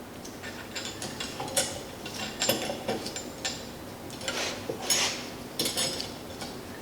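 Steel tractor parts being handled and fitted together by hand: irregular light metallic clicks, clinks and small scrapes as a spring and pin are worked into place.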